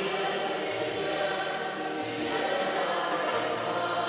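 A choir singing a hymn, the voices holding long notes.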